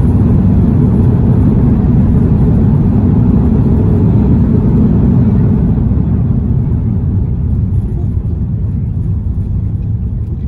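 Cabin noise of an airliner decelerating on the runway just after touchdown: a loud low rumble from the engines and the rolling aircraft, which eases off about six seconds in as it slows.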